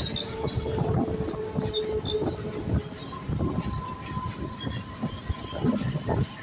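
MEMU electric train running on the track, wheels knocking irregularly over rail joints, with a steady wheel squeal. The squeal is lower for about the first three seconds, then higher.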